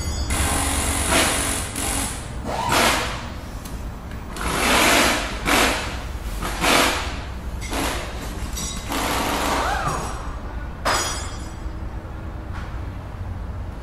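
Sound effects for an animated logo and outro montage: a steady low rumble under a string of whooshes and short impact hits, about ten in all, with a brief rising swoosh near the end.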